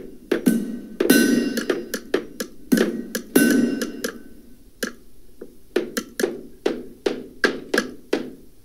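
Hammer blows pitched down to sound deeper, struck in an irregular rhythm of about two to three a second. The heavier blows in the first half carry a brief metallic ring; the later strikes are lighter.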